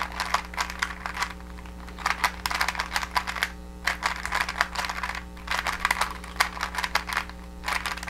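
Plastic 3x3 Rubik's Cube being turned quickly in the hands: its layers rotating give dense runs of small clicks and clacks with short pauses between, as a four-look last-layer move sequence is worked through.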